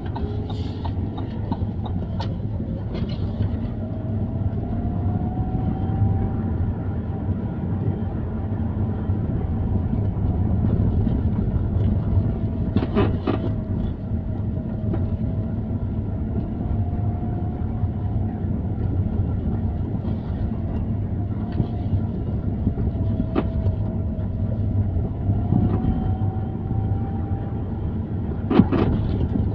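Lada Vesta on the move: a steady road and engine rumble with a faint tone that slowly rises and falls, and sharp creaks about thirteen seconds in, again near twenty-three seconds and near the end.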